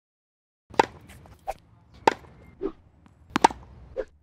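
A tennis ball hit with a table-tennis paddle and bouncing on a hard court: three sharp smacks about 1.3 seconds apart, the last one doubled, each followed by a softer bounce.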